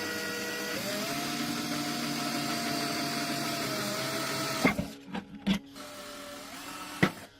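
Small electric hand power tool's motor whirring, picking up speed about a second in and then cutting off with a click near the middle; a few clicks and taps follow, with a second short burst of the motor.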